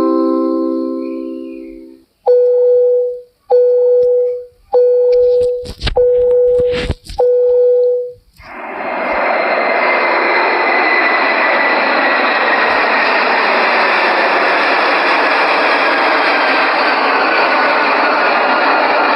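A held chord fades out, then an airliner cabin chime sounds a single note five times about a second apart, with a couple of clicks among the last ones. Before halfway, the steady rushing noise of an airliner cabin in flight sets in and carries on.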